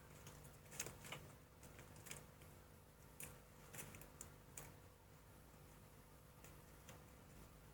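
Faint, scattered clicks and crinkles of tape being wrapped around the end of a wooden clothespin, dying away a little past halfway; otherwise near silence.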